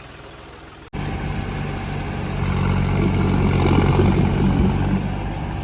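Tractor diesel engine running steadily, then after an abrupt cut about a second in, a tractor engine running loud under load in a tug-of-war pull, growing louder over the next few seconds.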